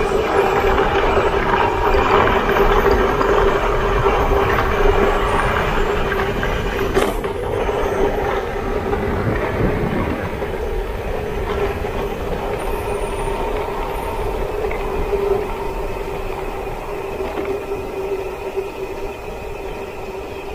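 Mountain bike running fast downhill on a paved road: a steady rush of wind and tyre noise with a steady mid-pitched whine, slowly fading toward the end.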